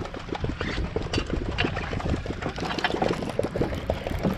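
Boat motor idling with a steady low rumble, overlaid by a clatter of irregular short knocks.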